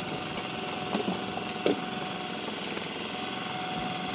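A motor running steadily with a steady hum, broken by a few sharp knocks on wood about a second in and again shortly after, as a freshly caught fish and the tackle are handled in a wooden boat.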